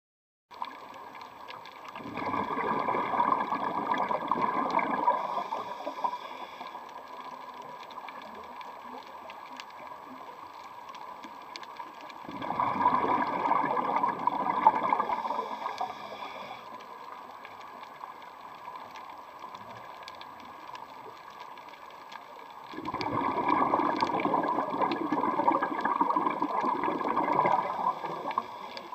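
Scuba diver's exhaled regulator bubbles rushing and bubbling past the underwater camera three times, about ten seconds apart, each burst lasting around four seconds, the rhythm of the diver's breathing. Between the bursts a quieter steady background with a faint steady whine.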